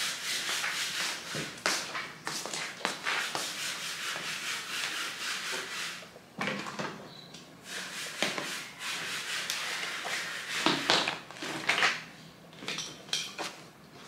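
Paper rustling and sliding, with scattered light taps as small plastic containers and Play-Doh tubs are set down on a tile floor. The rustle is steady for the first half, then broken up by separate taps.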